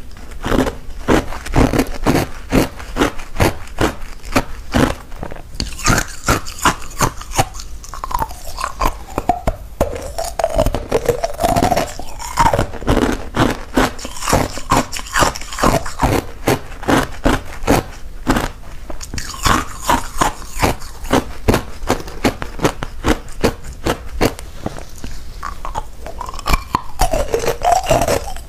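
Clear ice cubes being bitten and crunched between the teeth, close to the microphone: a continuous run of sharp crunches, several a second.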